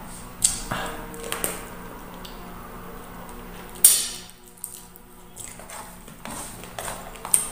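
Close-up eating sounds: wet chewing, lip-smacking and sucking on adobo-braised chicken feet, with scattered small clicks and one sharp, loud smack or bite just before halfway.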